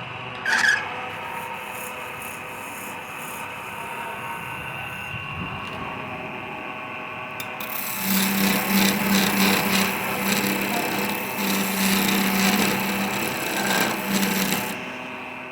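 Wood lathe running with a steady motor whine. A short loud scrape comes just after the start. About halfway through, a tool is pressed against the spinning wood, giving a loud rough scraping that lasts about seven seconds and stops shortly before the end.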